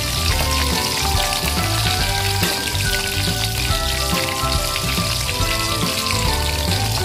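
Battered prawns deep-frying in hot oil in a wok: a steady sizzle throughout, under background music with a bassline and a stepping melody.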